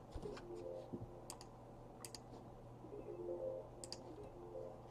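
Faint, scattered clicks and ticks of trading cards and packs being handled.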